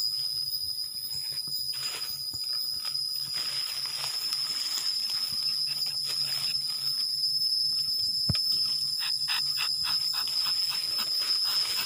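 Rubber-tapping knife shaving a thin strip of bark from a rubber tree in short scraping strokes, clustered early and again near the end. A steady high-pitched whine runs underneath throughout, and there is a single sharp click a little after eight seconds.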